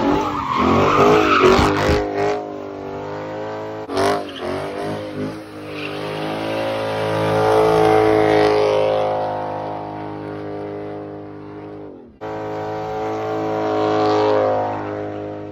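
Chrysler 300 sedan's engine revving high and held near the top while its tires spin and screech in a burnout, the pitch rising and falling. The sound breaks off abruptly a few times.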